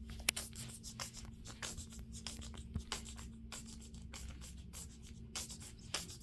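Faint, rapid scratching and rubbing, many short scrapes in a row, like something being rubbed or scraped across a surface, over a low steady hum.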